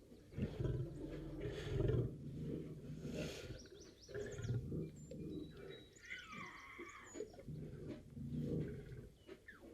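Lion roaring and growling, a series of deep calls one after another, the loudest about two seconds in.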